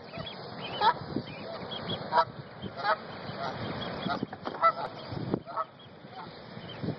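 Adult Canada geese honking repeatedly in short, loud calls, in defense of their goslings.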